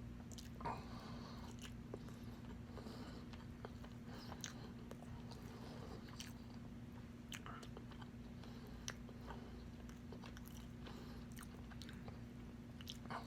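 A person chewing spicy pork adobo close to the microphone: soft, irregular mouth clicks and wet smacks, over a faint steady hum.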